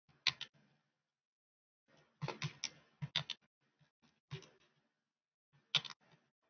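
Computer keyboard typing: irregular keystroke clicks in short runs, a quick flurry about two seconds in, with dead silence between the runs.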